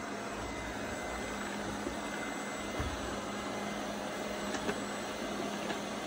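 Laresar Evol3 robot vacuum running: a steady whir of its suction motor with a faint hum underneath, and a few faint clicks in the second half.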